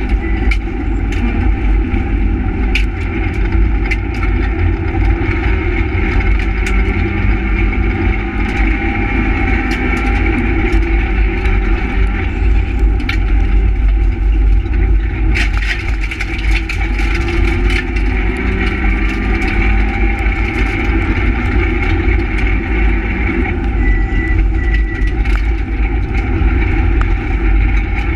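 Renault Twingo R1 rally car at full speed, heard from inside the cabin: the engine's note rises and falls as the driver accelerates, shifts and lifts, over heavy road and tyre rumble, with scattered short clicks.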